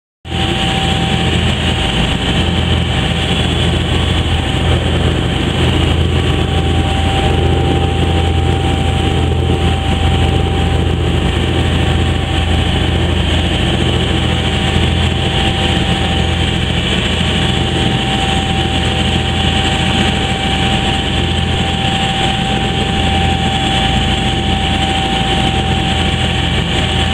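A tour boat under way: its engine runs steadily with a low drone and a thin steady whine, while water rushes and hisses past the hull.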